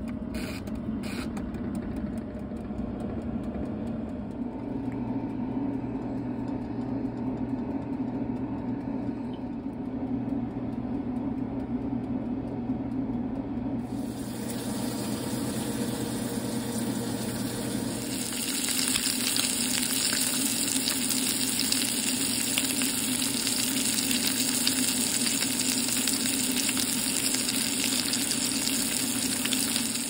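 A countertop oven runs with a steady hum, after a few clicks as its timer dial is turned. About halfway through, a frying sizzle comes in and gets louder from about two-thirds of the way on.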